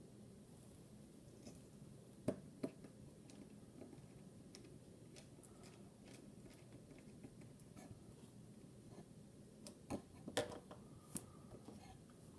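Faint, sparse clicks and taps from a Kershaw Dividend pocket knife being handled while its torsion bar spring is fitted. There are two sharp clicks about two seconds in and a short cluster of clicks near the end.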